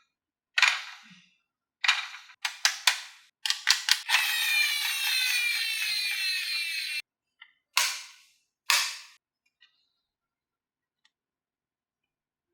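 Glass marbles on a HABA wooden marble run: a string of sharp clacks as marbles drop and strike the track. About four seconds in, a marble rolls along a run for about three seconds with a falling whir, and then a few more clacks follow.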